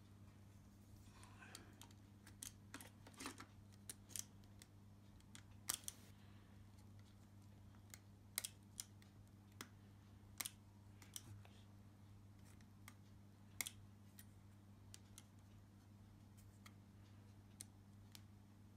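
Faint, scattered plastic clicks and taps as a battery is fitted into a Nikon Coolpix P900 bridge camera and its battery door is handled, over a steady low hum.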